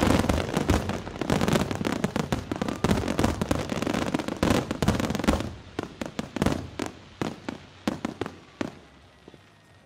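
Aerial fireworks: a dense volley of shell bursts and crackling, thinning after about five and a half seconds to scattered separate bangs that die away near the end.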